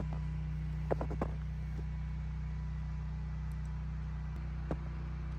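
Steady low mechanical hum, with a few short clicks about a second in and again near the end.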